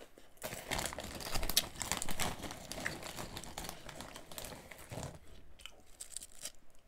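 Crunchy Simba potato chips being chewed close to the microphone: a dense crackling crunch that starts about half a second in and dies away after about five seconds.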